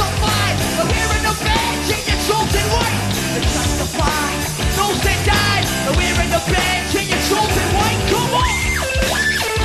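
Loud rock music with yelled vocals over a dense, driving band.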